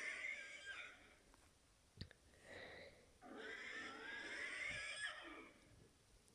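Homemade Godzilla-style roar sound effect: a wavering, screeching cry that ends about a second in, a click and a short softer cry near the middle, then a second long wavering screech lasting a little over two seconds.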